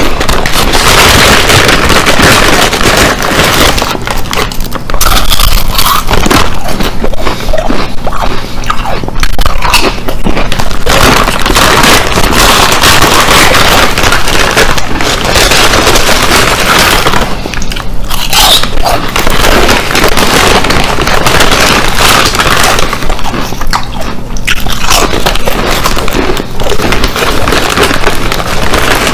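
Loud crunching and chewing of Ruffles ridged potato chips close to the microphone.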